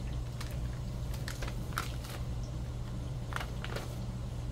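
Notebook pages stiff with glued-on paper collage being turned and handled, giving short, irregular rustles and crackles of paper over a steady low hum.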